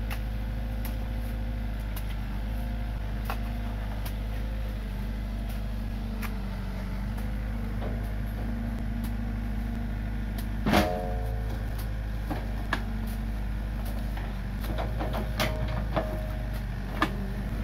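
Komatsu PC45 mini excavator's diesel engine running steadily as it digs. Scattered clicks sound throughout, with one louder clank that rings briefly about eleven seconds in.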